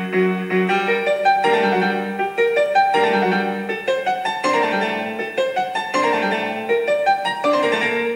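Piano music with quick successive notes over held chords.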